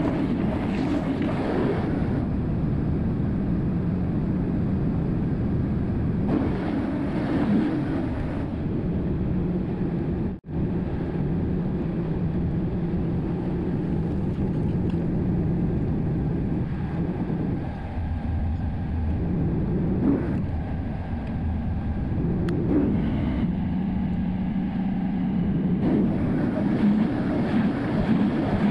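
Volvo 140 excavator's diesel engine running steadily. The sound cuts out for an instant about ten seconds in.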